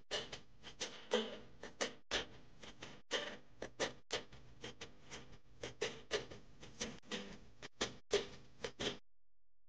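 Background music: sparse plucked notes with sharp clicking percussion, two or three clicks a second, cutting off suddenly about nine seconds in.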